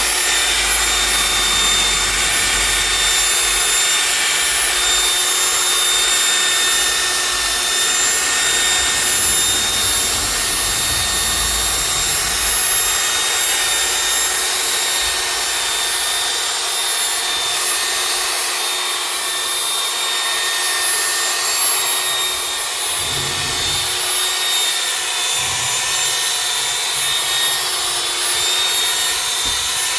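Electric car polisher running steadily, its motor giving a constant high whine as it buffs cutting compound over sanded paint to take out the 2000-grit scratches and bring back the shine.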